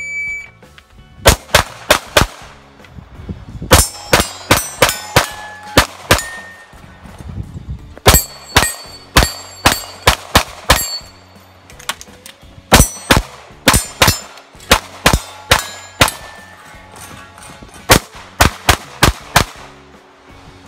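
Shot timer beeps once, then an Open-division competition pistol fires rapid strings of shots, about two to six shots a second, broken by short pauses as the shooter moves between positions. Some hits ring on steel targets.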